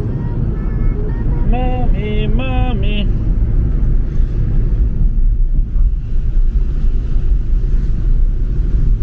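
Steady low road rumble inside a moving car's cabin, from the tyres on a wet road and the engine. A few short pitched notes sound from about one and a half to three seconds in.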